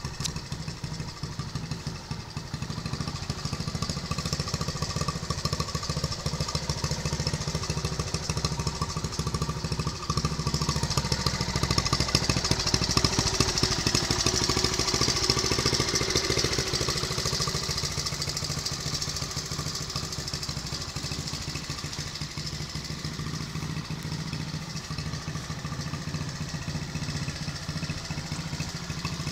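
Vintage Honda CT70 minibike's small single-cylinder four-stroke engine idling steadily, a little louder in the middle.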